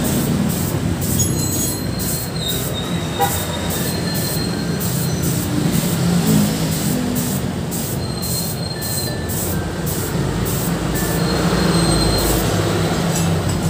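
Gravity-feed air spray gun hissing as paint is sprayed onto motorcycle parts, the hiss pulsing about three times a second over a steady low hum. A few thin, high squeals come and go.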